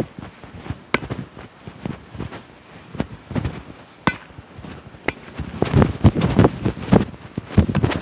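Irregular knocks and thumps, coming thicker and louder in the second half.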